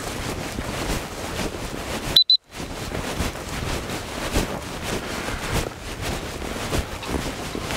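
Wind buffeting the microphone over footsteps swishing through tall grass. About two seconds in, two short high beeps and a brief cut in the sound.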